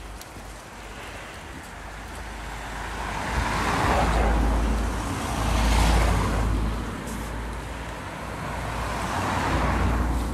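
Road traffic: vehicles passing close by, their engine and tyre noise swelling and fading three times.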